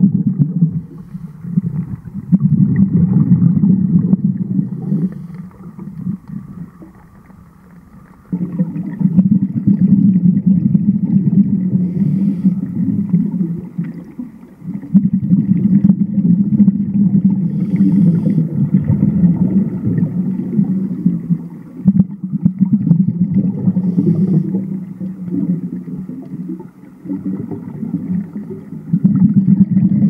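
Scuba regulator exhaust bubbles rumbling and gurgling past an underwater camera, in long stretches of several seconds with short pauses between them, in the rhythm of a diver's breaths.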